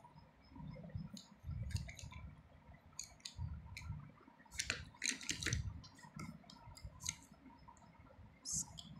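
Scattered light clicks and taps of small plastic paint pots and paintbrushes being set down on paper, with a quick cluster of clicks about five seconds in, over dull thuds of the phone camera being handled.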